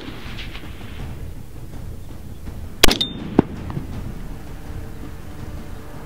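Rifle shots: a sharp crack right at the start, a louder one about three seconds in, then a smaller crack about half a second after it.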